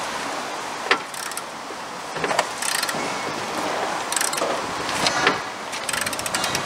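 Metal hand tools clinking and clanking as mechanics work on a bus's engine mounts: a scatter of short sharp clicks and knocks, with a quick run of clicks near the end.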